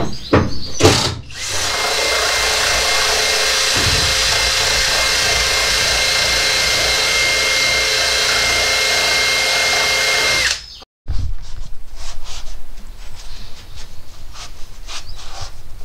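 Power drill running steadily for about nine seconds with a constant whine, stripping rust and flaky paint from the van's steel floor; it stops suddenly. Scratchy scraping and rubbing on the metal follow.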